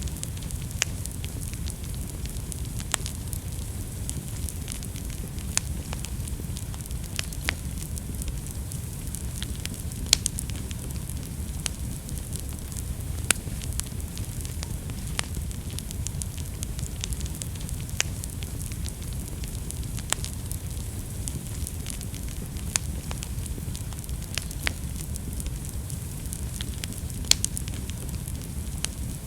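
Wood fire in a fireplace burning steadily, a low rumble and soft hiss with sharp pops and crackles at irregular moments.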